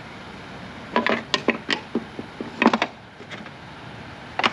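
Quick runs of small sharp clicks and taps from handling the mirror head's parts and the camera, in two clusters about a second and two and a half seconds in, with a single click near the end.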